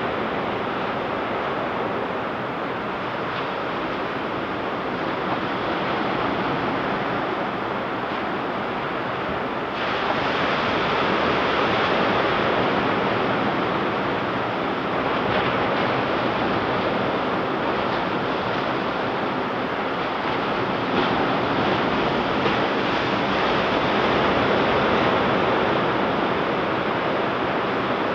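Ocean surf breaking and washing up on a beach: a continuous rushing noise that swells louder about a third of the way in and again near the end.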